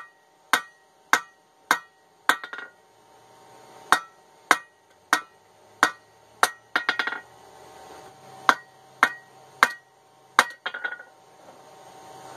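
Hand hammer striking hot steel on an anvil, roughly two blows a second in three runs with short pauses between, each blow ringing. An old ball peen hammer head is being forged into a chipping hammer.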